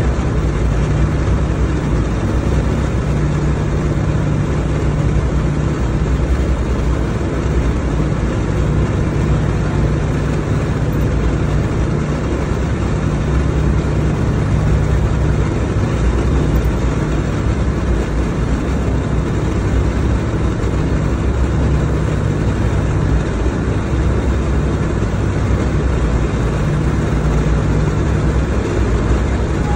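Steady drone of a B-17 bomber's four Wright R-1820 Cyclone radial engines in flight, heard from inside the fuselage, with a hiss of rushing air over the low engine note.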